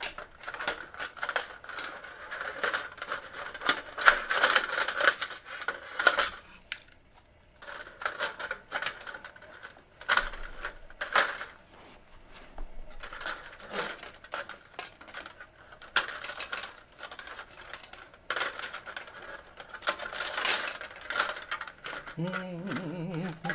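Hand work on a fluorescent light fixture's wiring: irregular clusters of sharp clicks and scraping from hand tools and wire being worked, with short pauses between bursts.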